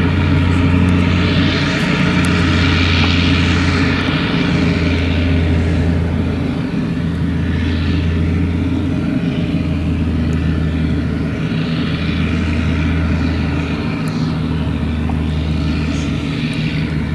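Claas Jaguar 970 self-propelled forage harvester running under load as it chops maize with its Orbis 750 header, with the engine of the tractor alongside mixed in. A steady loud machine drone carries a low hum that pulses about every two seconds, and a hiss of crop flow swells and fades above it.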